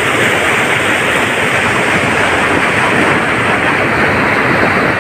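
Steady rushing of irrigation-canal water pouring through a jhal, a brick canal fall, heard as a loud, even rush with no breaks.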